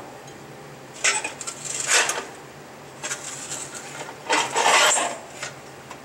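Two bursts of metallic clinking and rattling, about a second in and again past four seconds, with a lighter clink in between, from metal parts being handled around an opened cast-iron gearbox.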